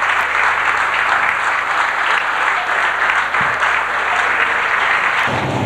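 Audience applauding: a dense, steady wash of clapping. Near the end a low hum comes in underneath.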